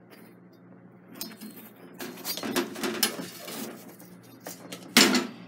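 Kitchen handling noise at a gas hob: irregular rustling and clattering as the chapati is lifted off the burner flame, over a steady low hum. Near the end comes one loud, short sound.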